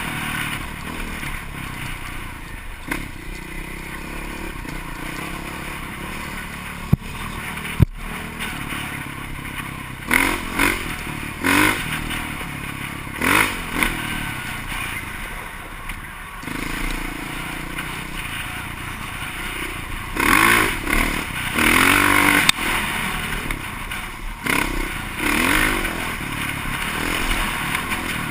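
Off-road vehicle engine running and revving up and down unevenly, with surges of louder revving, along with clattering and scraping. Two sharp knocks come about seven to eight seconds in.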